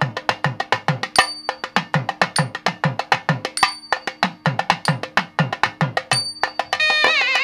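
Traditional Indian drumming: a fast, even pattern of sharp strokes, about six a second, with deep strokes that drop in pitch, over a held drone. Near the end a wind instrument enters, playing a melody with bending notes.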